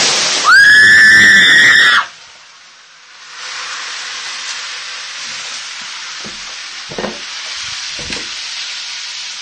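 Water hitting hot oil in a frying pan flares up in a sudden whoosh, and a person screams high and loud for about a second and a half. The burning oil then hisses steadily, with a couple of knocks near the end.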